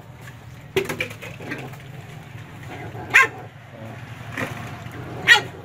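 Puppies jostling at a shared food bowl, with about four short, sharp yelps breaking out among them.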